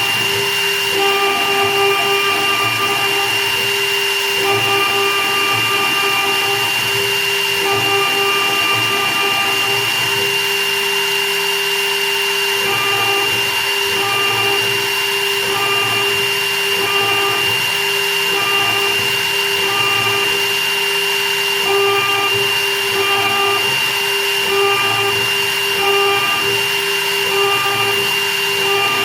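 Jewellery CNC milling machine running for wedding rings: a steady high whine with a lower hum, and further motor tones that start and stop in pulses of about a second, shorter and quicker in the second half.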